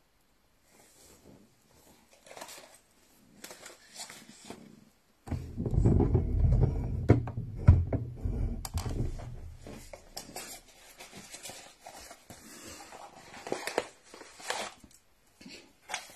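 Plastic packaging rustling and crinkling as it is handled. About five seconds in, a loud low rumble of handling noise on the phone's microphone comes in for several seconds.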